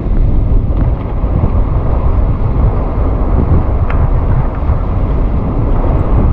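Strong hurricane wind buffeting the microphone, a loud, continuous low rumbling rush.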